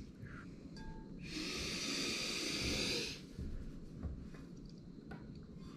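A person's long breath, lasting about two seconds, drawn while leaning over a bowl of water to dip his face in. A few faint small clicks follow near the end.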